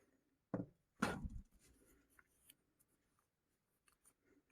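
Two brief rubbing, scraping handling noises, the second and louder one about a second in, then a few faint small ticks.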